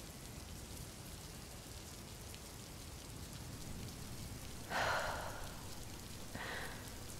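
Steady rain falling, as a soft background hiss. About two-thirds of the way in, a woman gives a soft breathy sigh close to the microphone, and takes a shorter breath near the end.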